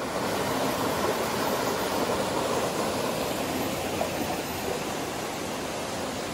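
Shallow forest stream rushing over rocks in a small cascade: a steady hiss of running water, easing a little about four seconds in.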